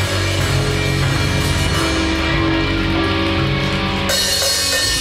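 Live rock band playing an instrumental passage with no vocals: electric guitar over a drum kit with cymbals, at a loud, steady level.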